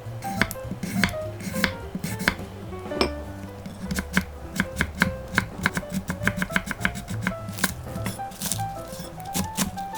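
Background music with a light melody, over a knife chopping vegetables on a cutting board in quick, irregular strokes.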